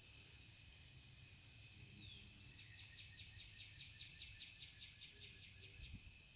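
Faint evening outdoor ambience: a steady high insect drone over a low rumble. In the middle, a rapid pulsing call of about five chirps a second runs for about three seconds, and a couple of short high bird notes come through.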